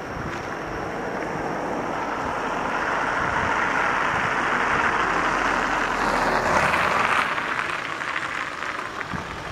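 Small Volkswagen van driving past close by and over the level crossing, its tyres and engine swelling to a peak about five to seven seconds in and then fading as it moves away.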